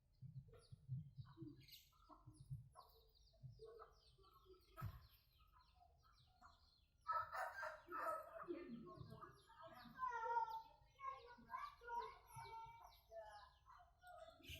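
Domestic birds calling and clucking, faint and sparse at first, then a busy run of short overlapping calls from about halfway through.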